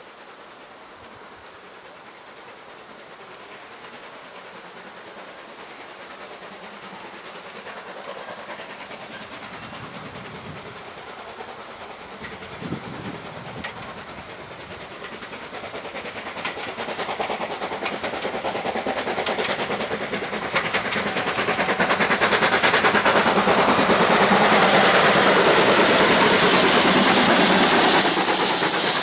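Steam locomotive hauling a train of coaches, approaching and passing close by, growing steadily louder. Steam hiss and the clack of wheels over the rail joints build to a peak as it goes past near the end.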